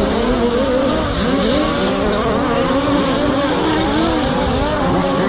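Several radio-controlled short course race cars running together, their small engines revving up and down in overlapping, constantly changing pitches.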